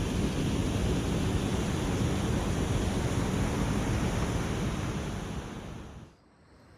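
Steady rain falling, a dense even hiss with a heavy low rumble. It fades away about six seconds in.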